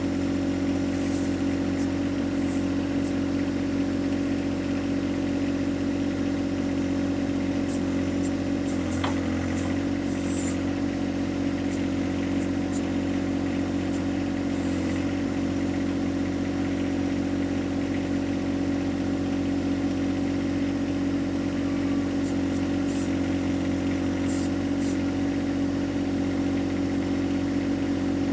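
John Deere 1025R compact tractor's three-cylinder diesel engine running steadily while the 260B backhoe digs, with scattered faint high-pitched clicks.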